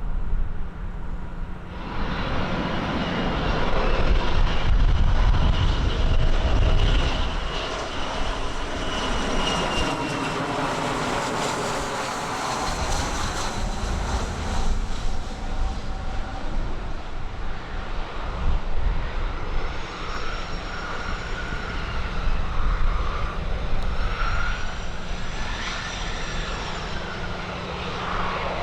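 Aircraft engines running: a steady rumble with high whining tones that slide down and up in pitch. The sound steps up suddenly about two seconds in.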